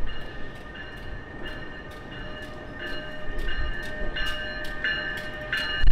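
NJ Transit ALP-46 electric locomotive approaching slowly with its bell ringing, about one and a half strikes a second, growing louder as it nears, over the low rumble of the train.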